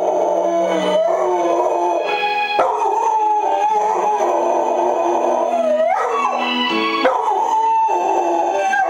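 Sheepdog howling along to TV theme music: long drawn-out howls that waver in pitch, broken by short pauses for breath, one sliding upward about six seconds in.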